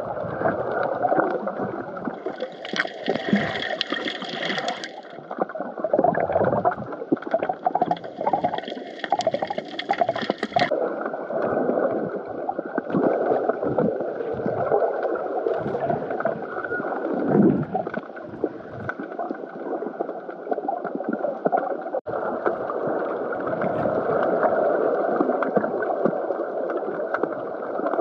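Muffled underwater water noise from a submerged GoPro camera: uneven gurgling and sloshing, with two short stretches of brighter hiss in the first ten seconds.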